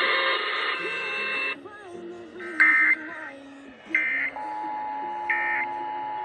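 Emergency Alert System test signals over background music: three short, harsh data bursts (the digital SAME header) about 1.3 seconds apart, and a steady two-tone attention signal that starts about two-thirds of the way in. A dense, high, many-toned sound cuts off about one and a half seconds in.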